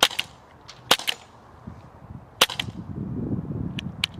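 T4E .43-calibre CO2 training pistol fired several times: three sharp shots within about two and a half seconds, each followed closely by a second snap, then two fainter clicks near the end.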